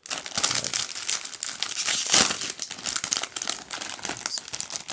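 Packaging of a Pokémon card collector box being opened by hand: a dense run of crinkling and tearing, loudest about two seconds in.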